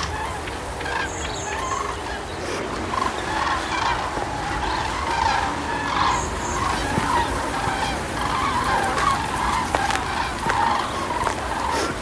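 A flock of birds calling, with many short overlapping calls going on all the time over a steady low rumble.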